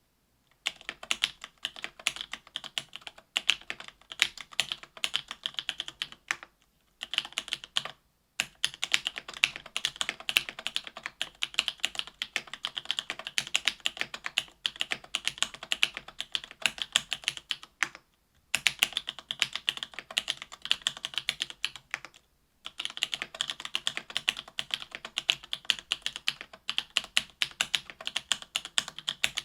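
AL.BOK mechanical keyboard with stock SP-Star Meteor White 57 g linear switches in an aluminium plate, under GMK keycaps, being typed on in a fast, continuous patter of keystrokes. There are a few brief pauses.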